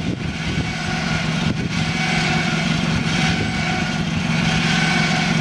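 Small engine on a tower trailer's winch drive running at a steady pitch as the winch lowers an aluminium lattice tower.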